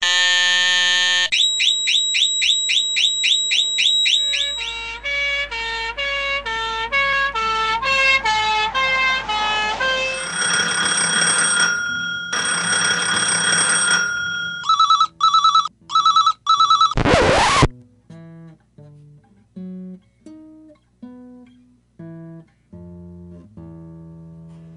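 Music: fast repeating chirps give way to a run of stepping notes and long held tones, then pulsing beeps and a quick sweep. Quieter plucked notes follow.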